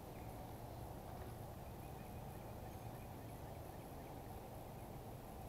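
Quiet outdoor background at a pond's edge: a steady low rumble and hiss with no distinct event.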